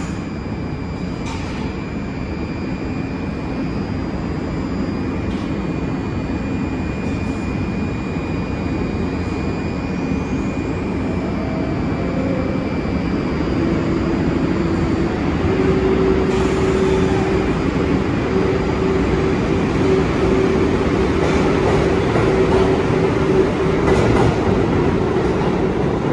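New York City subway train running through an underground station: a continuous rumble of wheels on rails with a thin high squeal over the first half, and a steady lower whine that grows louder from about halfway on.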